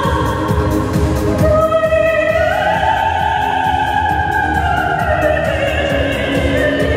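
A woman singing over music with a steady beat, holding one long note that steps up about two seconds in and slowly falls away near the end.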